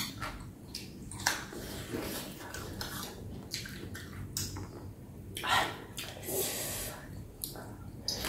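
Close, wet mouth sounds of a person eating pickled chicken feet: irregular chewing smacks, sucking and lip-smacks, the loudest a little after one second and again around five and a half seconds.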